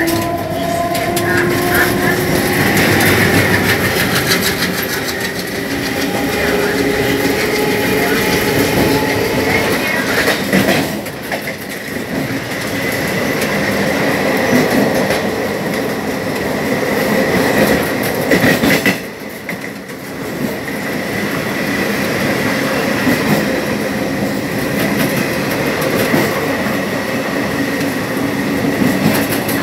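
Twin ALCo diesel locomotives and their passenger coaches passing at speed on the adjacent track. A droning engine tone slides in pitch over the first few seconds. Then comes the steady rush and clickety-clack of the coaches' wheels going by close alongside, briefly quieter twice.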